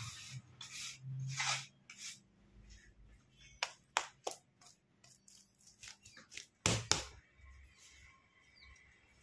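Hands spreading Dalda vegetable fat over a sheet of puff pastry dough on a stone worktop: irregular soft rubbing and slapping, with a few sharp taps about four seconds in and a louder slap near seven seconds.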